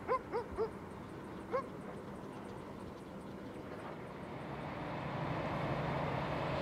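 A dog barks four times in quick succession, then once more about a second and a half later. From about five seconds in, the low rumble of a freight train swells up.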